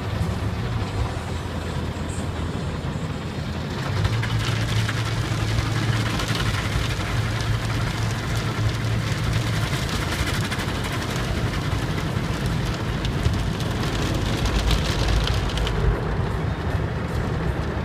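Automatic car wash spraying water onto a car's windows and body, heard from inside the car as a hissing wash over a steady low hum. The spray grows louder about four seconds in and eases off near the end.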